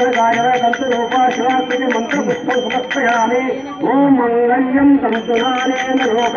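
A man chanting Hindu ritual mantras in long sung tones into a microphone, with a small puja hand bell rung rapidly and steadily. The bell stops about three seconds in and starts again about two seconds later while the chanting goes on.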